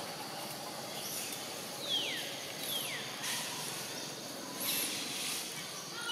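Outdoor woodland ambience with two short whistled calls, each falling in pitch, about two and three seconds in, and a few brief high hissing bursts after them.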